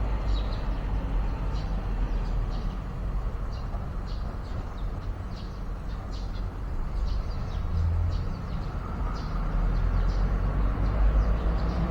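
Small birds chirping: many short, high chirps scattered over a steady low rumble.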